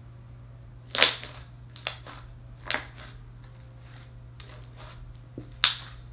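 Slime being squished and poked by hand, giving sharp pops and clicks: a loud one about a second in, two lighter ones soon after, and another loud one near the end.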